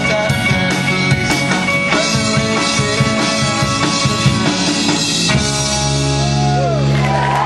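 Amateur rock band playing live, with drum kit and electric guitars, through the closing bars of a song. A little past five seconds in the drums stop and a final chord is held, ringing on.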